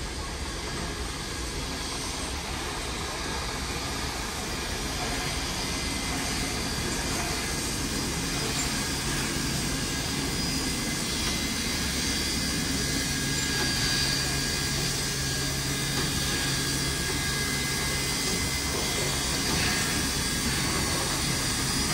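Steam locomotive 3526, double-heading with 3801, drifting slowly in: a steady hiss and rumble that grows gradually louder as it approaches. A low steady hum joins about eight seconds in.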